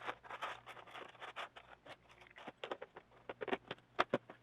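Irregular light clicks, taps and scrapes of hands working small wire terminals and quick-connect connectors, with a sharper click about four seconds in.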